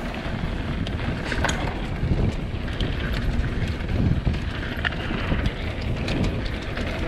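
Mountain bike rolling down a dirt trail: a steady rumble of tyres on dirt with wind buffeting the microphone, and the bike's frame and chain rattling in quick sharp clicks over the bumps.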